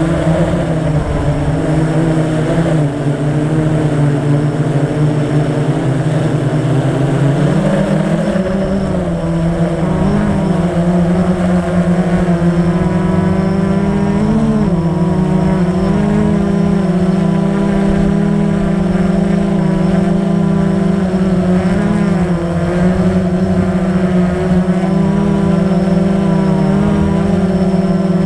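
Blade 350 QX quadcopter's brushless motors and propellers buzzing up close, heard from the camera mounted on the drone: a steady droning hum whose pitch steps up about a quarter of the way through and then wavers slightly as the throttle changes.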